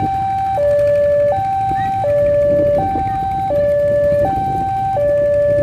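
Electronic two-tone warning alarm alternating high and low about every three-quarters of a second, typical of a railway level-crossing warning, with a low rumble beneath it.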